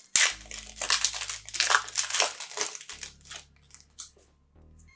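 Plastic trading-card pack wrapper crinkling and tearing as a pack is ripped open, in a run of sharp crackles that dies away about three and a half seconds in.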